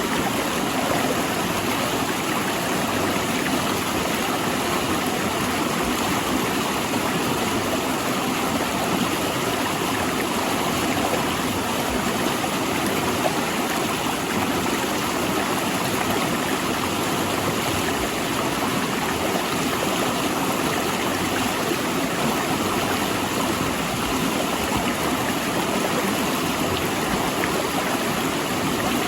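A rushing mountain river flowing between large rocks, a steady, even rush of water.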